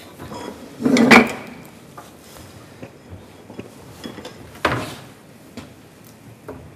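Metal pots and pans being handled on a gas stovetop. There is a loud clattering knock about a second in, a second sharp knock at around four and a half seconds, and a few light clicks in between.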